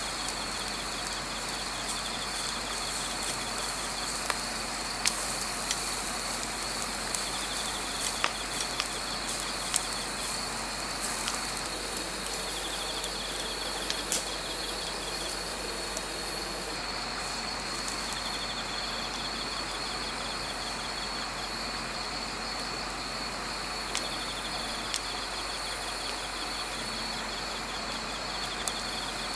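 Crickets and other autumn insects chirping: a steady high trill, with trains of rapid pulsed chirps that come and go every few seconds. Under it runs a continuous hiss, with scattered sharp clicks and pops from the charcoal grill being tended.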